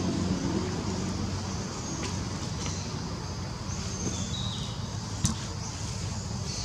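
A motor vehicle's engine running steadily in the background, a low hum, with a single sharp click about five seconds in and faint high chirps scattered through.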